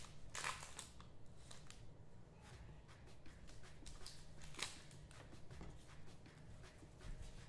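Trading-card packs being opened and handled: short rustling, crinkling strokes about half a second in and again around four and a half seconds, with light ticks between.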